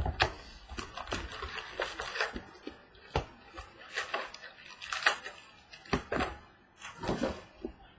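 Handling and opening a box of 2015 Panini Prizm Football trading card packs: irregular short crinkles, rustles and taps of cardboard and foil wrappers. The sounds thin out near the end.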